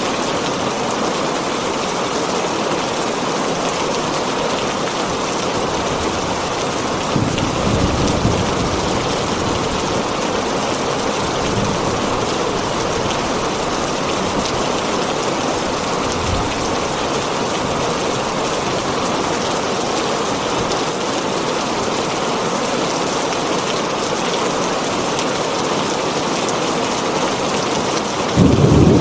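Steady heavy rain drumming on a tin roof, a dense even hiss, with brief low rumbles about seven seconds in and again near the end.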